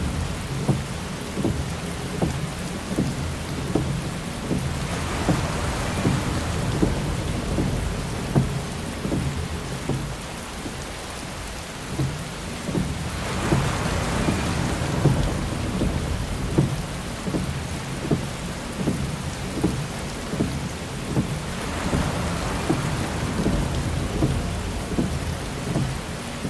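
Heavy rain pelting a car's windshield and body: a steady low rumble with many sharp drop ticks. A swell of hiss comes about every eight seconds, three times, from the windshield wiper sweeping on an intermittent setting.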